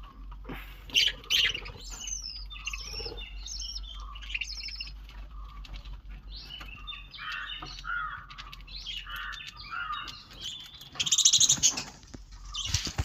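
Small birds chirping and twittering over one another in many short high calls, with a louder burst of rapid sound near the end.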